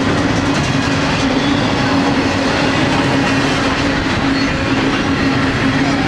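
Freight train cars rolling past at speed: a loud, steady rumble of steel wheels on rail with clacking over the joints, and a steady high tone held throughout.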